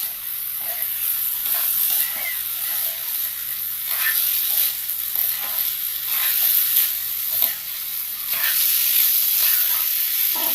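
Fried rice sizzling in a hot pan while it is stirred, with a spatula scraping the pan now and then.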